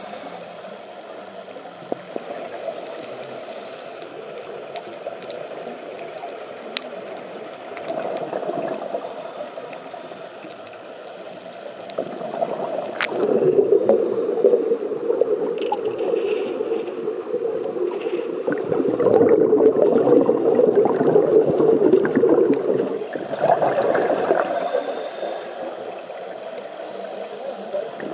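Scuba regulator breathing heard underwater through a camera housing: a hissing breath in, then long bubbling, gurgling exhalations. The bubbling is loudest through the middle stretch.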